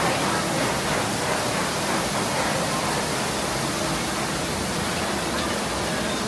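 Steady rushing noise, even and unbroken, with a few faint distant voices.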